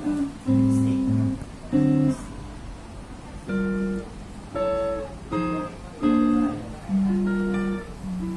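Electric guitar played through a Peavey tube combo amp: a slow melodic line of picked single notes and small chords, each ringing out before the next, about one to two a second.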